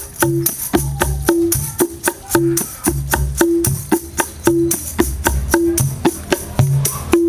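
Instrumental percussion intro to a sholawat song: a steady, quick beat of drum strokes with jingles, about four strokes a second, before the singing comes in.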